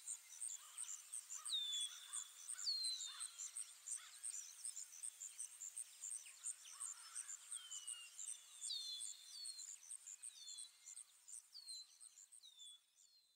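Nature ambience of birds and insects: short down-slurred bird whistles repeat over a steady, evenly pulsed high insect chirping. It is faint and fades out near the end.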